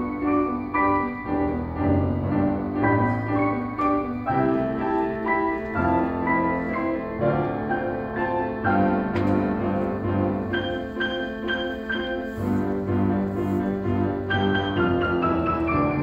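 Piano ensemble: an upright piano and two grand pianos played together by three players, a steady run of chords over bass notes.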